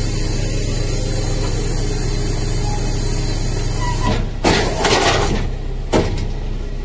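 Car carrier trailer's hydraulics running as the lower deck is raised: a steady low engine-and-pump hum, with a burst of hissing about four seconds in and a sharp clunk about a second after it.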